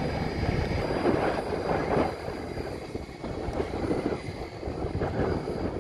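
Electric Blade 500X RC helicopter flying at a distance, a faint steady whine from its motor and rotors under gusting wind buffeting the microphone.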